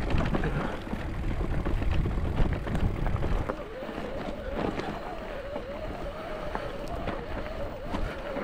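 Wind buffeting the microphone while a mountain bike rolls along a trail, with a steady whirr and scattered small rattles; the wind rumble drops away after about three and a half seconds, leaving the whirr and clicks.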